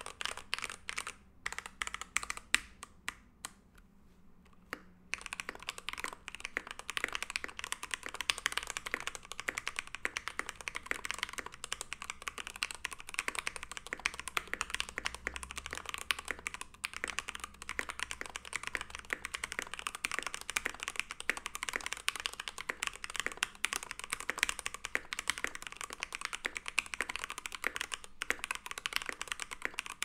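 Mechanical keyboard with Gateron Box Ink V2 Black linear switches, a brass plate and Cherry-profile PBT keycaps being typed on: a few separate keystrokes at first, then continuous fast two-handed typing from about five seconds in.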